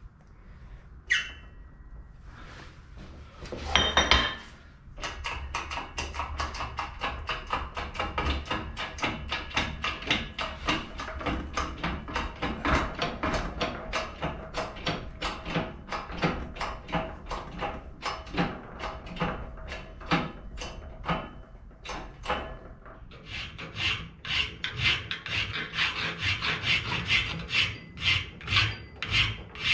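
Hand-pumped hydraulic shop press being worked by its lever, quick regular strokes about three a second, with a sharp metallic clatter near the start. About three-quarters of the way through this gives way to a hand file rasping across a brass block in a vise, in quick, even strokes.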